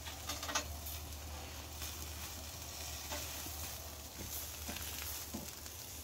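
Food sizzling on a barbecue grill: a steady crackling hiss with a low, even hum underneath.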